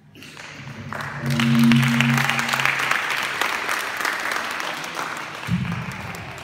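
Audience clapping. It swells about a second in, then slowly fades, with a voice briefly heard over it.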